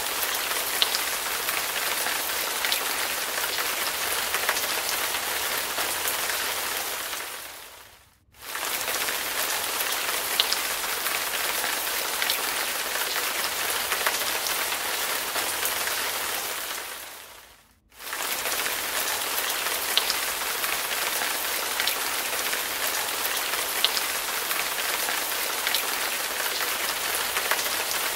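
Heavy rain falling, a dense steady hiss flecked with sharp drop hits. It fades away twice, about eight and about eighteen seconds in, and comes straight back each time.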